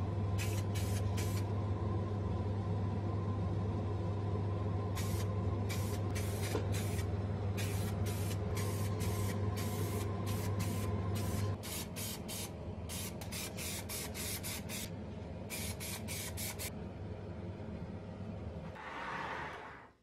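Aerosol spray paint can sprayed in many short bursts, each a brief hiss, some in quick runs of several a second. A steady low hum lies underneath.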